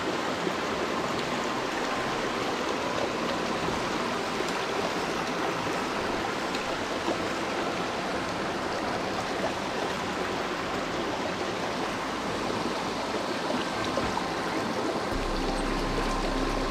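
Mountain torrent rushing and splashing steadily into a small pool.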